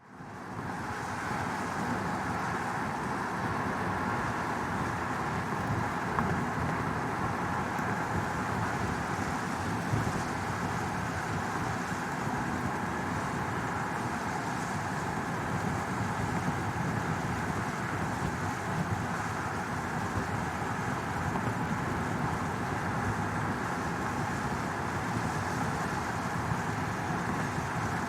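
Car interior ambience: the steady rumble and hiss of a car heard from inside its cabin, fading in over the first second and then staying even throughout.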